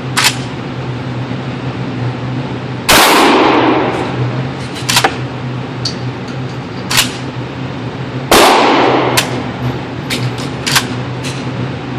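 Two blasts from a Kel-Tec KSG 12-gauge pump-action bullpup shotgun firing slugs, about five and a half seconds apart, each with a long echoing tail. Shorter, quieter sharp cracks come between them, over a steady low hum.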